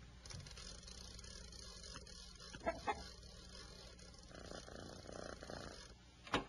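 Wind-up gramophone being wound by its hand crank: a faint, steady rasping from the winding mechanism that stops about six seconds in, followed by a sharp click as the needle is set on the record.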